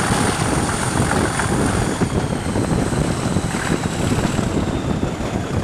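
Diesel locomotive at the head of the train working hard under power, heard from an open carriage window as a steady, loud rumble mixed with rushing air and wheel noise.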